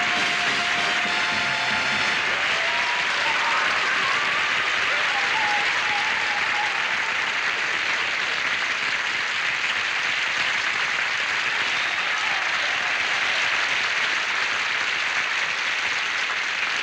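Studio audience applauding steadily, with a few voices calling out, while the orchestra's final held chord dies away in the first couple of seconds.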